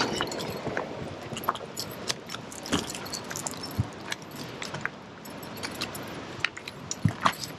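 Footsteps on a dry, stony dirt trail: irregular crunches, scuffs and small clicks of loose grit and stones underfoot, with a few louder knocks about seven seconds in.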